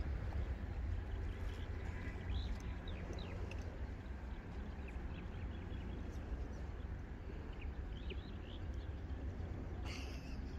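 Outdoor ambience: steady wind rumble on the microphone, with scattered short bird chirps.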